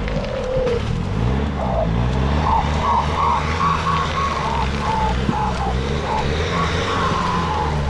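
A 4x4's engine is revved up and down over and over as it works through mud, with a higher wavering whine running over it that ends in a falling glide.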